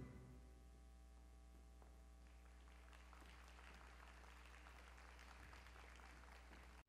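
Near silence: a faint steady hum, with faint audience applause starting about two seconds in.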